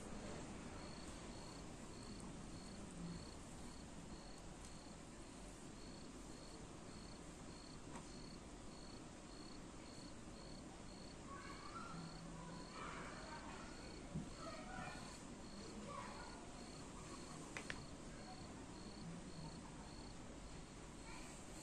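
Faint high-pitched insect chirps, short and evenly spaced at about two a second, over low background hiss.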